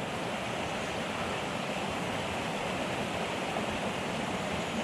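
Mountain headwater stream running, a steady even rush of water.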